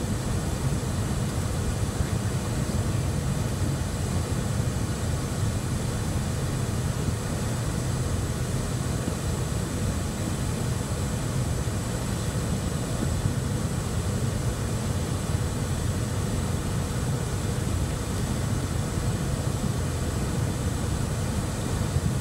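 Steady cockpit noise of a Cessna Citation Bravo on approach: a low rumble from its twin Pratt & Whitney PW530A turbofans and the airflow, with a faint thin high whine held steady over it.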